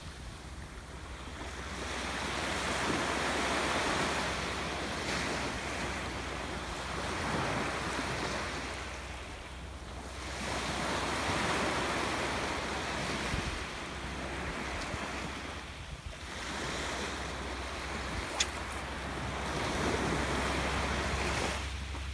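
Small surf waves breaking and washing up a sand-and-pebble beach, the hiss swelling and fading every few seconds, with wind rumbling on the microphone. A single sharp click about three-quarters of the way through.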